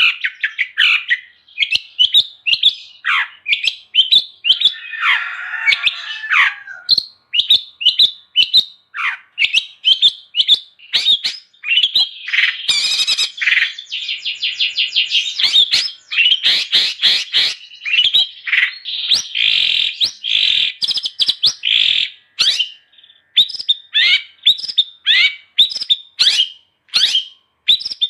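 Long-tailed shrike (cendet) singing energetically: a rapid, almost unbroken run of short sharp chirps and quick slurred notes, with a couple of harsher, scratchy passages about five and thirteen seconds in.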